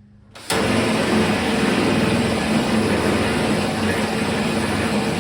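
Handheld power tool running at a steady speed, working on the truck's sheet-metal cab corner. It starts abruptly about half a second in and holds level throughout.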